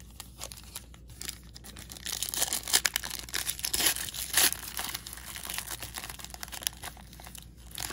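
A trading-card pack wrapper crinkling and tearing as it is handled and opened, in irregular crackles with a few louder rips in the first half.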